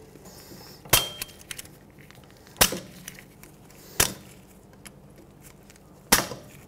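Pliers squeezing a steel locking clip shut on the parking brake lever pin of a rear drum-brake shoe, giving four sharp metallic clicks about one to two seconds apart.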